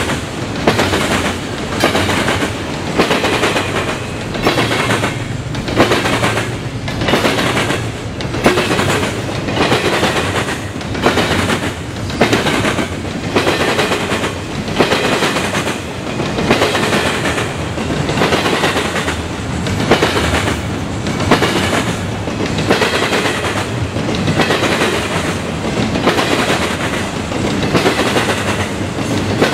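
Double-stack intermodal container train rolling past close by, its well-car wheels beating a regular clickety-clack over the rail joints over a steady rumble.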